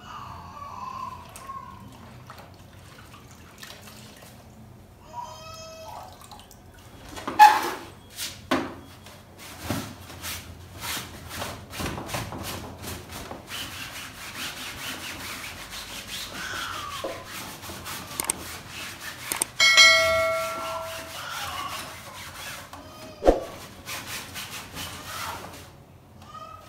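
A damp cloth rubbing and wiping over a bassinet's fabric seat, with irregular scraping and sharp knocks and clicks as the seat and frame are handled and tilted. A short pitched sound comes about twenty seconds in.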